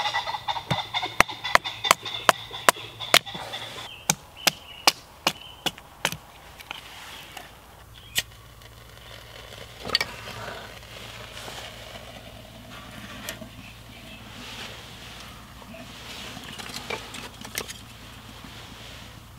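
A hatchet taps down through a stick of kindling resting on a log, making a run of sharp wooden knocks about two or three a second. The knocks stop after about six seconds, leaving a couple of isolated knocks and quieter handling and rustling.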